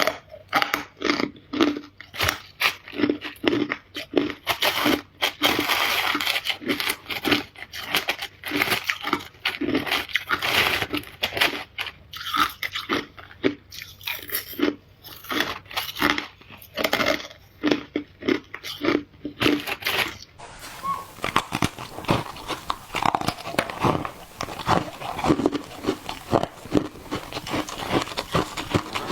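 Ice being bitten and chewed close to the microphone: rapid, irregular crunches one after another. About twenty seconds in, the crunching turns denser and softer over a steady hiss.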